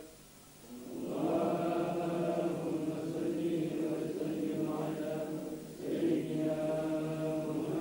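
A group of men chanting a Muslim prayer together, in long held tones. The chant breaks off for a moment at the start and again briefly about six seconds in.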